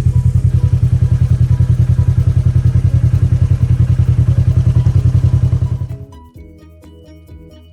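Engine running with a loud, steady low rumble that pulses rapidly. It cuts off about six seconds in, and soft plucked background music follows.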